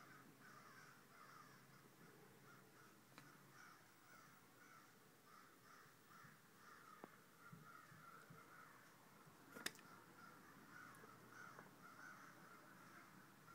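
Faint, continual cawing of many crows, the calls overlapping and repeating without pause. A single sharp click sounds about ten seconds in.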